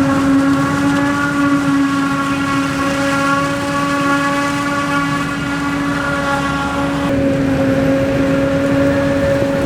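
Harvest machinery running with a steady, level whine. The upper overtones thin out about seven seconds in.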